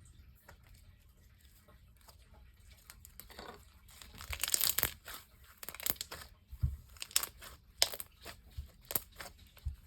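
Homemade slime being squished and stretched by hand, making crackling, popping clicks. Faint for the first few seconds, then a steady run of crackles from about four seconds in.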